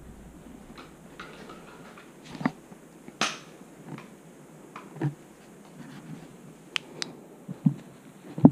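Footsteps and handling noise from a body-worn camera as someone walks slowly through a room: scattered soft thumps and a few sharp clicks, including two quick clicks about seven seconds in.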